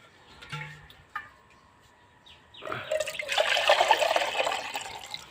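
Liquid pouring or splashing in a rush that starts about halfway in and lasts about two seconds.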